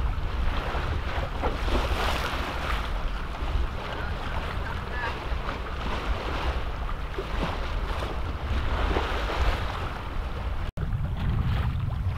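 Wind buffeting the microphone over water rushing along the hull of a sailing yacht under way, a steady rush that cuts out for an instant near the end.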